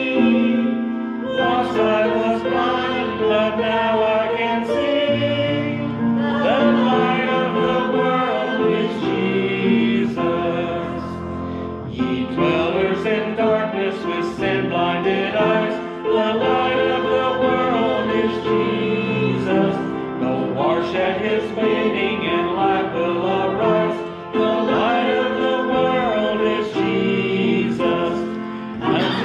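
A small church congregation singing a hymn together, men's and women's voices.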